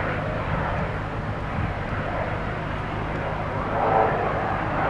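Airbus H135 P3 helicopter with twin Pratt & Whitney PW206B3 turboshafts flying past at a distance: a steady low hum of rotor and turbines, with a brief louder swell about four seconds in.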